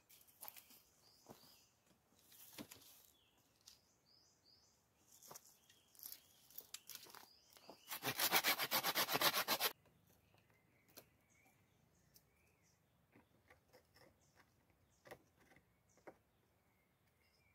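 A folding hand saw cutting through wood in quick, rasping strokes for under two seconds about halfway through, the loudest sound here. Around it are scattered knocks and rubbing of wooden sticks being handled, with birds chirping.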